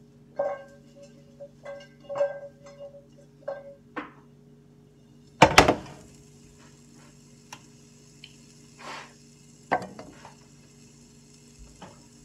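Spatula clinking and scraping against a hot frying pan as frozen steak pieces are stirred, several clinks with a short metallic ring, then a loud double clack about five and a half seconds in. A faint sizzling hiss follows, with a few lighter knocks.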